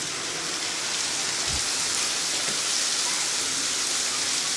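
Steady hiss of heavy rain falling and pattering on surfaces.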